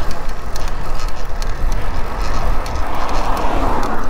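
Wind buffeting the microphone of a camera on a moving road bike, ridden into a stiff headwind: a strong, uneven low rumble, with a hiss that swells over the last second and a half.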